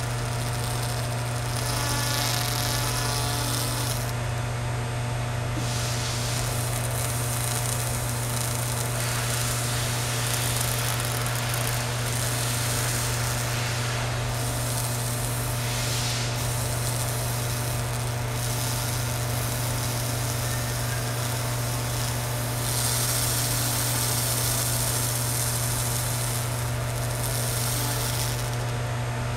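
Handheld laser rust cleaner working on a steel chisel blade: a steady low hum, with a hiss from the rust being blasted off that grows and fades in stretches as the beam scans the metal.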